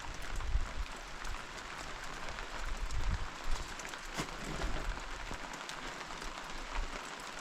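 Steady rain pattering on a surface, a dense crackle of many small drop ticks, with a few low thumps.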